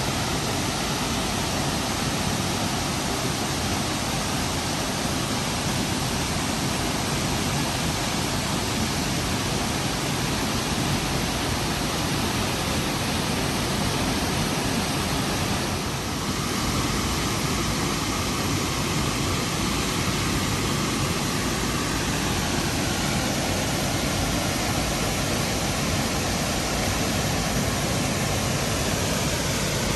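Burney Falls, a 129-foot waterfall, pouring steadily into its basin: an even rushing noise of falling water.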